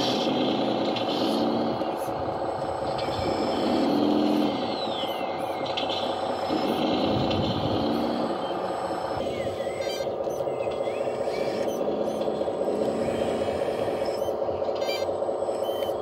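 LESU 1/14 hydraulic RC tracked skid-steer loader working: a steady whine from its hydraulic pump and drive motors, with short rising-and-falling swells several times as it lifts the arms and tips the bucket. About nine seconds in, the higher part of the whine drops away.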